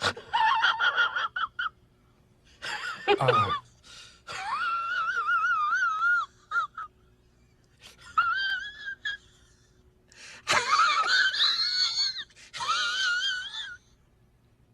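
A string of short comedy sound-effect clips: high-pitched, wavering squeals and wheeze-like cries in about six separate bursts. They start with quick pulses, fall in a downward glide about three seconds in, then follow as longer wobbling tones.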